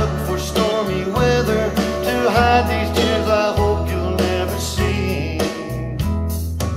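Recorded music played back through Tonewinner TD C6 hi-fi loudspeakers: an instrumental passage of the song between sung lines, with a steady bass line.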